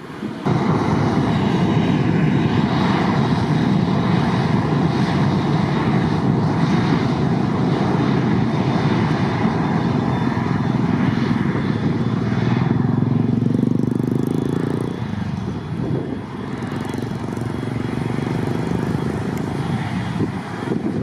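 Jet airliner engines passing very close, a loud steady rush that starts abruptly about half a second in and eases off after about fifteen seconds.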